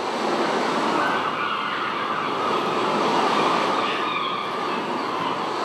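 Steady rushing noise imitating the sea for a ship's crossing, swelling slightly around the middle.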